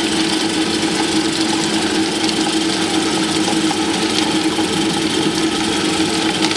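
Tabletop wet grinder running steadily, its drum turning against the grinding stones as it grinds soaked rice and urad dal into batter, with a constant low hum under the grinding noise.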